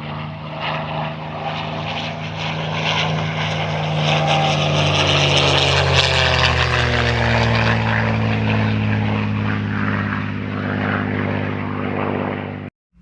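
A loud, steady piston-engine drone passing by, its pitch falling through the middle as it goes past. It cuts off abruptly near the end.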